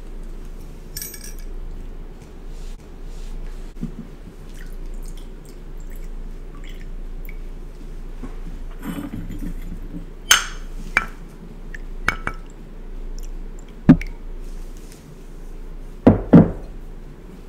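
Porcelain tableware clinking: a china teacup and a porcelain pitcher knocked and set down, with liquid poured softly into the cup. A few sharp clinks come in the second half, the loudest near the end as a close pair.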